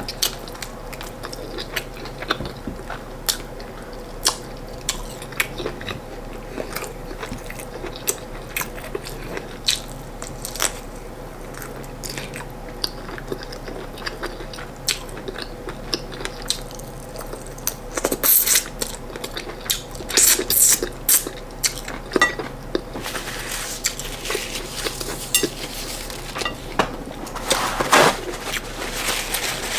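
Close-miked eating: chewing and biting on corn fufu and chicken, with frequent sharp wet mouth clicks and smacks. Louder clusters come about two-thirds of the way through and again near the end, over a faint steady hum.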